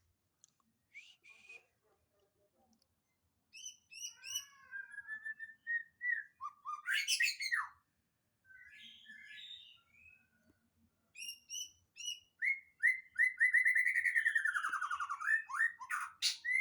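White-rumped shama (murai batu) singing, a young bird practising its song: short bursts of whistled and chattering phrases with pauses between them, then a long rapid trill that slides down in pitch near the end.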